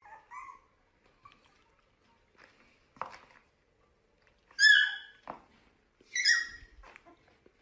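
Puppy giving two short, high yips about four and a half and six seconds in, with a few faint squeaks near the start.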